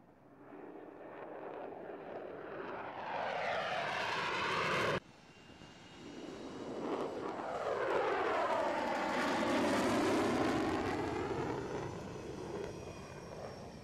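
An F-35's jet engine at takeoff power, growing steadily louder until it cuts off suddenly about five seconds in. Then the twin jet engines of a taxiing F/A-18 Hornet, a rushing jet noise with a thin high whine, swelling with a sweeping, phasing quality as it passes and then fading.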